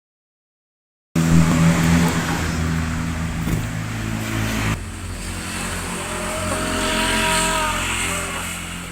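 A motor vehicle engine running loudly, starting abruptly after a second of silence and changing suddenly about five seconds in. After that a whine rises in pitch, then fades near the end.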